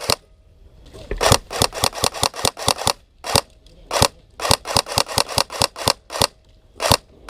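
Airsoft guns firing: a quick string of sharp shots about a second in, then single shots and short rapid strings.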